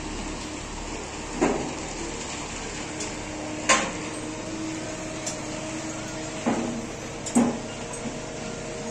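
Steel rebar clanking: several irregular metallic knocks a second or two apart, each ringing briefly, over a steady background hum.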